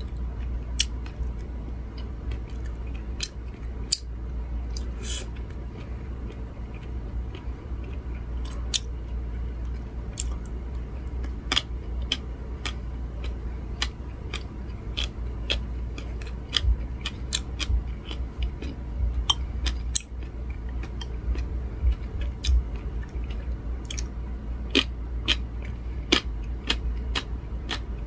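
A person chewing salted, pressed cucumber pickle, with many irregular sharp crunches and clicks throughout. A steady low hum sits under it.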